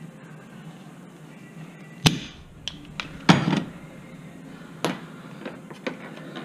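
Sharp knocks and clanks of hand tools and brake parts being handled during a rear brake job, seven or so separate hits with the loudest about two seconds in and a quick cluster just after three seconds.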